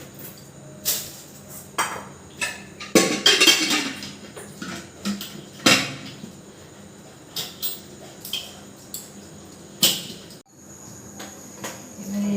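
Metal kitchen utensils clinking and knocking against a cooking pot in irregular strikes, with a longer scraping stir about three seconds in, as dal is boiled with turmeric and sugar.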